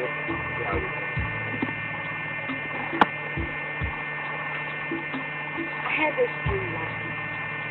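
Steady electrical mains hum with a buzz of several high tones, broken by a few short knocks, the sharpest about three seconds in.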